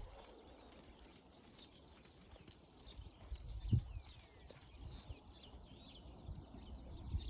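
Faint, soft hoofbeats of a horse trotting on sand footing, with small birds chirping from about three seconds in.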